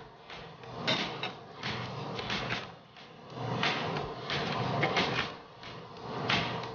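Wooden spoon stirring chicken pieces in a pot of boiling water, with irregular scraping and knocking strokes against the pot.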